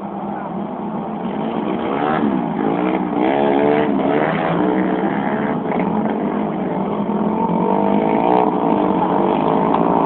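Motorcycle engines running and revving, their pitch rising and falling repeatedly over a steady drone.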